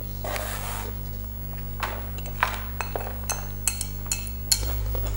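Cutlery clinking against plates and bowls at the table: a brief rustle, then a string of light, sharp clinks with a faint ring, about eight in all. A steady low hum runs underneath.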